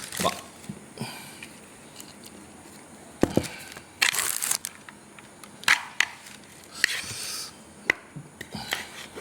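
Kolo mee being handled in a takeaway container: utensils click sharply against the container now and then, with a few short rustling bursts of the noodles being tossed or eaten.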